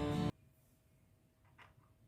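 Background guitar music that cuts off suddenly just after the start, leaving quiet room tone with a faint click about one and a half seconds in.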